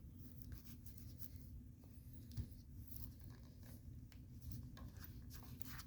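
Faint rubbing and small scrapes of hands working a rubber vent-window seal into the corner groove of its frame, over a low steady hum, with one sharper tick about two and a half seconds in.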